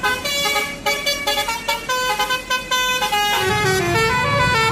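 Basuri telolet multi-tone bus horn playing a fast melody of short, stepping notes. Lower notes join about three seconds in.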